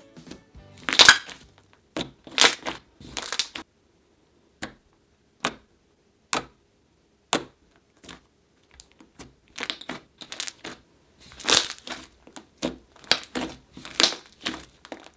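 Hands poking, pressing and squeezing a soft pink fluffy slime made with shaving foam, giving sticky crackles and pops. The pops come in dense clusters at the start and again in the second half, with single pops spaced apart in the middle.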